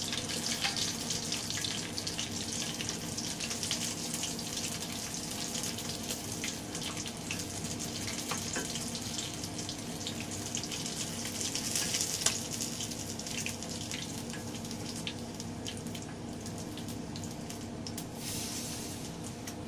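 Masala-coated kilangan fish frying in hot oil in a kadai: a steady crackling sizzle with scattered pops, one louder pop about twelve seconds in. The sizzling has died down, the sign that the fish is cooked through.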